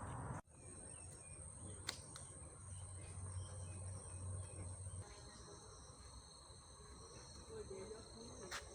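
Faint ambience with steady high-pitched insect calls, a second, lower insect tone joining about halfway through, and two sharp clicks.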